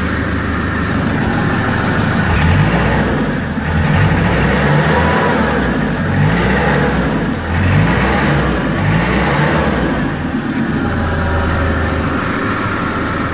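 Clark forklift truck's engine running in the open engine bay, idling and then revved up several times in short bursts between about two and nine seconds in before settling back to idle.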